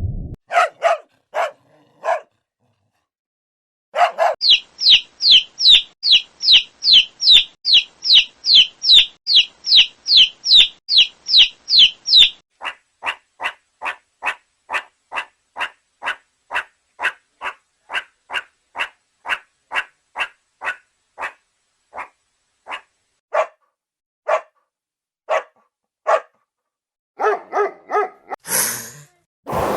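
A dog barking over and over in an even rhythm. First comes a fast run of high-pitched barks, about two to three a second, then a longer run of shorter, quieter barks that slowly thin out.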